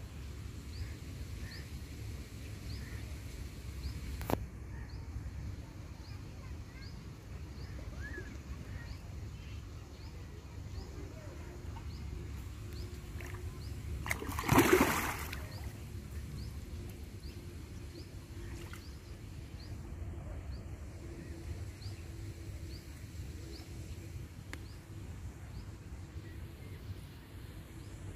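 Steady low wind rumble on the microphone, with faint high chirps repeating regularly through the first half. About halfway through, a splash of water rises and dies away within about a second, the loudest sound.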